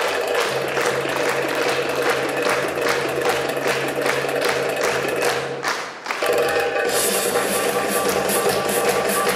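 Belly dance drum solo music: rapid drum strikes over a steady low drone. It breaks off briefly about six seconds in, then comes back with denser, brighter drumming.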